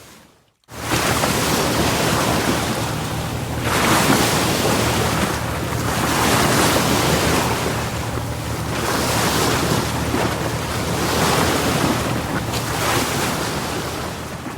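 Ocean surf sound effect: waves washing in and out in slow swells every two to three seconds. The sound drops out briefly at the very start, then resumes and fades away at the end.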